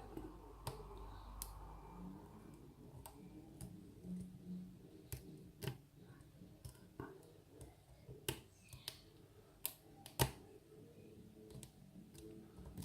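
Lock pick and tension tool working the pins of a Steelpinnings pin-tumbler challenge lock: faint, irregular metallic clicks and scrapes as pins are lifted and set. The sharpest click comes about ten seconds in.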